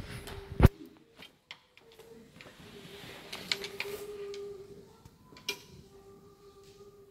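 Choir folders and sheet music being handled: paper rustling and scattered clicks, with one sharp click a little over half a second in the loudest. A faint steady note is held underneath from about a second in.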